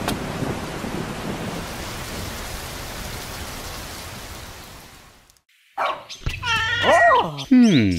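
Rain sound effect, a steady hiss that fades out over about five seconds. After a short silence comes a run of short cartoonish pitched calls with sliding pitch, cat-like meows among them.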